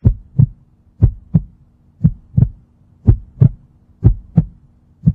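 Heartbeat sound effect: deep lub-dub double thumps, about one pair a second, five pairs in all, over a faint steady hum.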